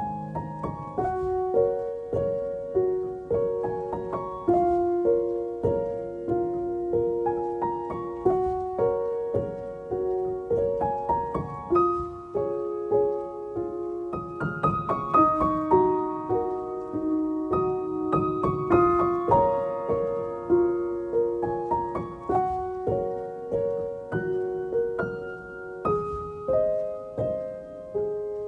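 Background piano music: a gentle melody of single struck notes, a few a second, each fading after it is played.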